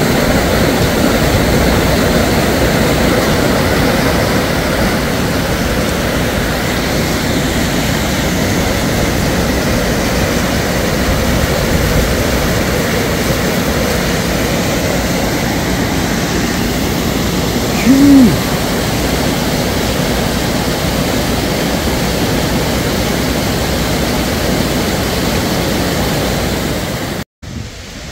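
Floodwater rushing across and under a washed-out road, a loud steady roar that cuts off abruptly about a second before the end.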